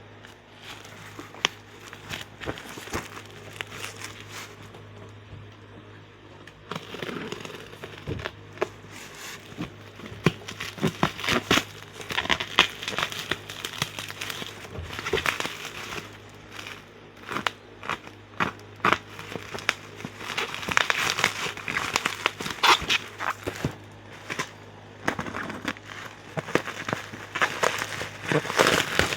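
Plastic packaging of a model kit being handled and opened: irregular crinkling with sharp little clicks and rustles, getting busier after about seven seconds, over a faint steady low hum.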